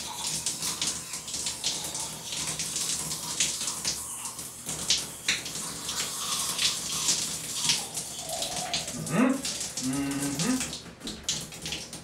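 Shower-mounted water flosser spraying into the mouth with the shower running: a steady hiss of water with crackly spattering splashes. A short voice-like sound gliding in pitch comes about nine seconds in, and the water cuts off shortly before the end.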